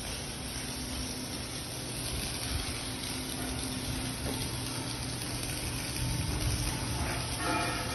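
Arc welding on a cylinder liner, a steady hiss that holds on throughout, with a few faint tones near the end.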